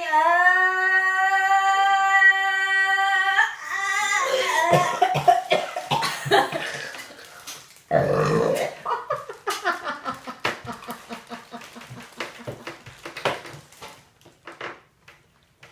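A woman heaving and retching after bananas and Sprite: a long, steady drawn-out groan, then sputtering coughs and gags with a loud heave about eight seconds in, fading to scattered gurgles and clicks.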